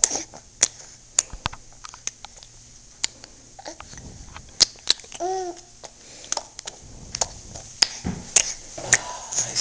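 A 7-month-old baby making sharp clicking and popping noises with her mouth, irregularly spaced, with a brief voiced sound about five seconds in and more voice near the end.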